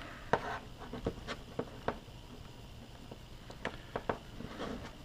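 Small, sharp clicks and taps at irregular intervals, with a brief scuffing sound near the end: a phone and its USB-C charging cable being handled at the charging port.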